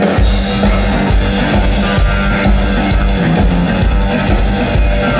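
Rockabilly trio playing live through a PA, an instrumental stretch with no vocals: Gretsch hollow-body electric guitar, upright bass and drum kit over a fast, steady beat.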